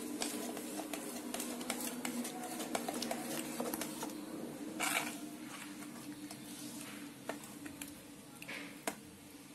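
Steel spoon stirring thick semolina idli batter in a stainless steel bowl: quick clinks and scrapes of metal on the bowl's sides, with one louder knock about five seconds in, over a steady low hum.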